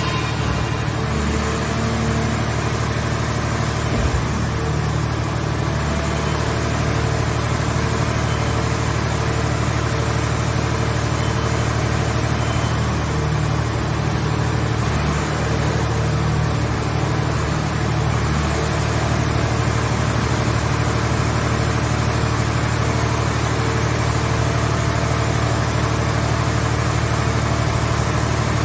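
Engine of a mobile car-body baler running steadily, a constant low hum with a faint high whine above it.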